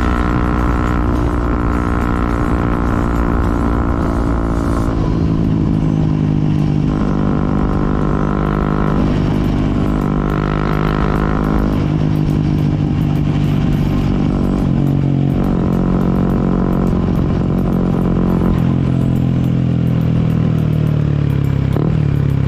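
Motorcycle engine running at a steady cruising pitch while riding, with road and wind rumble; the pitch drops over the last few seconds as the bike slows.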